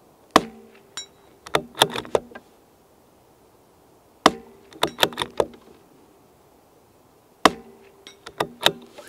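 Three shots from a moderated CZ 457 LRP bolt-action rimfire rifle, about three and a half seconds apart, each a sharp crack. After each shot comes a quick run of metallic clicks as the bolt is worked to eject the spent case and chamber the next round.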